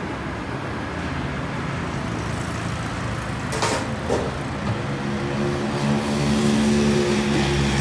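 A motor vehicle's engine running close by over steady street noise; its low hum comes in about halfway through and grows louder towards the end. A brief clatter sounds about three and a half seconds in.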